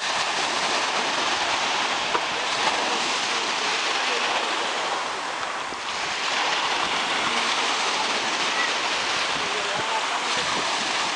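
Sea surf washing onto the shore: a steady rush of water that eases slightly about halfway through, then swells again as a fresh wave breaks around six seconds in.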